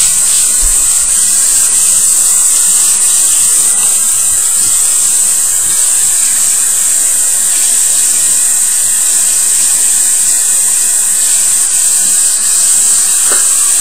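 Small electric motor running steadily, a high whine over a constant hiss that does not change.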